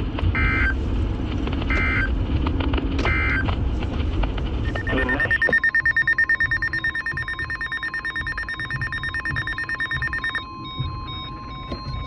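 Emergency alert signal: three short warbling data bursts of a SAME alert header about a second apart, then the steady warning alarm tone of NOAA Weather Radio, announcing a new warning. A higher, rapidly pulsing beep sounds over the tone for about five seconds and stops abruptly near the end, while the steady tone carries on.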